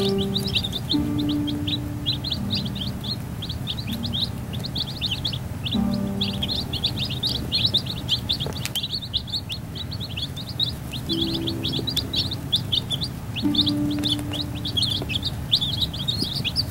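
A brood of baby chicks peeping nonstop: a dense chorus of short, high, downward-sliding peeps. Background music with long held notes plays underneath.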